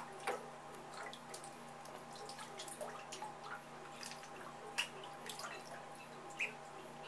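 Shallow bathwater in a tub dripping and splashing lightly as Pekin ducklings move and dabble in it: scattered small splashes, the sharpest about five seconds in. A brief duckling peep comes a little after that.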